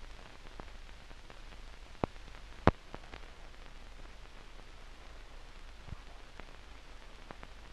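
Steady hiss with a few scattered sharp clicks, two louder ones about two and two and a half seconds in: surface noise and crackle of an archival 1960s newsreel film soundtrack.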